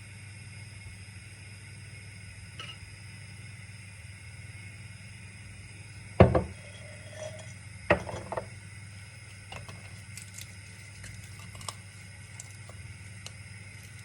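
Kitchen clatter over a steady hum: two loud knocks of pots or dishes being set down, about six and eight seconds in, then lighter clicks and clinks of utensils.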